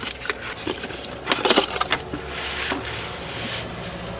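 Crackling, rustling handling of the new oil filter's cardboard box as it is opened and the filter taken out: scattered sharp crackles, with a longer rustle about two seconds in.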